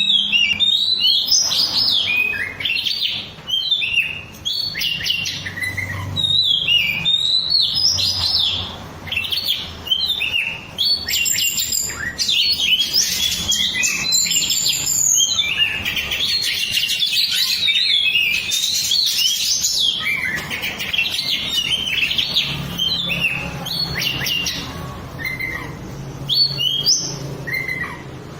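Oriental magpie-robin (kacer) singing: a loud, continuous stream of varied whistles, chirps and trilled phrases, fading toward the end.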